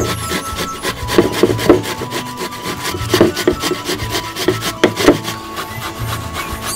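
Ash plantain being grated on a metal hand grater: rapid, repeated rasping strokes, several a second.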